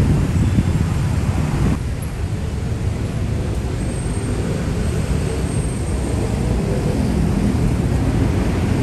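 Steady rumble of heavy street traffic, with car engines and tyres running together on a wet road. The higher hiss drops back about two seconds in.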